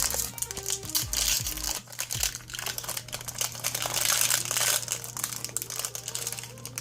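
Plastic snack wrapper crinkling irregularly as it is handled and opened.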